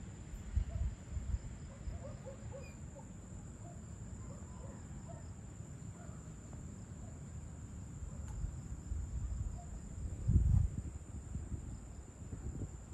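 Insects singing at dusk, a steady high-pitched trill, with faint scattered chirps in the first few seconds. Under it a low rumble that swells to its loudest briefly about ten seconds in.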